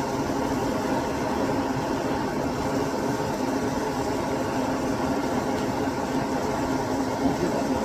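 Gas burner flame turned up high under a pot of chili: a steady rushing noise that holds at one level throughout.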